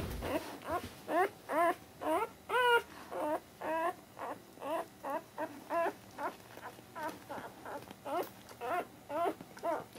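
Newborn puppy crying in a steady string of short, high squeaks, about two or three a second, each rising and then falling in pitch.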